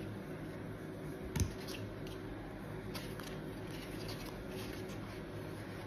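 Plastic meat pie cutter being folded and pressed shut around the filled dough: faint handling, with a soft knock about a second and a half in and a few light clicks later.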